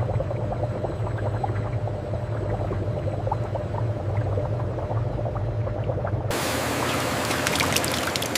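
Steady low factory machinery hum with scattered light clicks; about six seconds in it cuts abruptly to a loud, even rush of pouring water.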